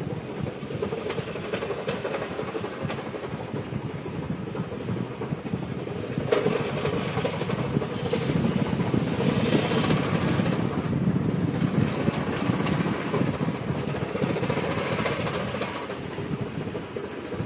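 A 2000 GMC Yukon XL on the move making a rapid tapping clatter over its running and road noise, louder through the middle. The noise is unidentified and comes only sometimes, only while moving; the owner suspects the transmission or flywheel.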